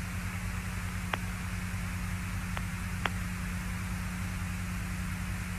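Steady hiss and hum of the Apollo 17 air-to-ground radio link between transmissions, with three faint clicks in the middle.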